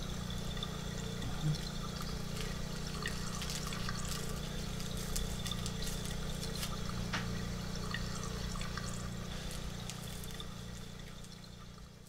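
Bathwater trickling and splashing in a metal bathtub as a boy washes, with scattered small clicks over a steady low hum, fading out near the end.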